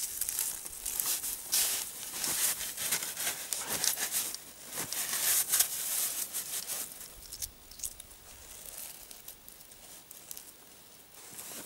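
Crunching and scraping in snow and ice as a wooden pole is handled and laid across an ice hole and a beaver trap's chain is fastened to it. The sounds are busiest for the first seven seconds and quieter after.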